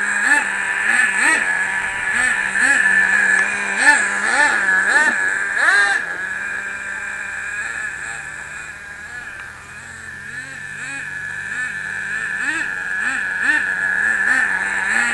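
Nitro RC sprint car's small glow engine running under light throttle during break-in, its high whine swelling up and down in quick blips. It fades a little around the middle, then grows louder again with more blips.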